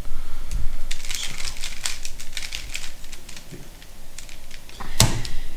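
Rubik's cube being handled and its layers turned: quick plastic clicks and rattles, thickest in the first couple of seconds, then one sharper click near the end.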